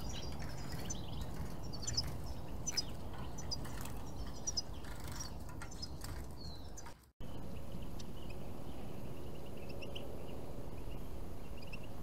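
Small songbirds chirping in short, high calls over steady outdoor background noise. About seven seconds in the sound cuts out for a moment, then fainter, sparser chirps continue over a steady background.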